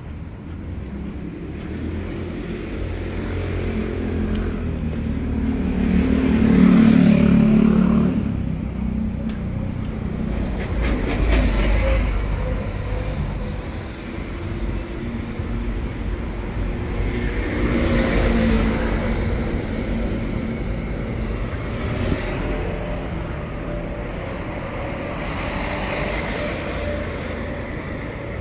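Road traffic: several vehicles pass one after another, their engine and tyre noise swelling and fading, the loudest about seven seconds in.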